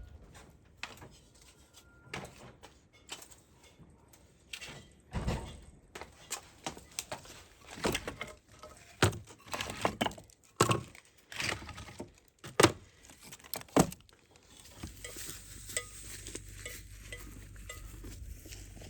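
Kitchen dishes and utensils clinking and knocking during meal preparation: a string of separate sharp knocks and clinks, thickest in the middle, giving way near the end to a steady low background noise.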